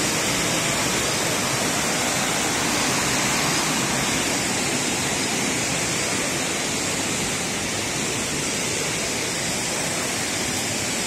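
Steady rush of a waterfall stream tumbling over rocks, a constant white-water noise.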